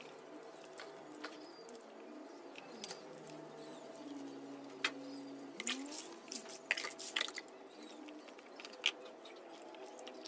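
Raw milkfish being cleaned by hand on a wooden board: quiet, scattered wet clicks and squelches, with a quick run of splashes about six seconds in as water is poured over the fish from a dipper.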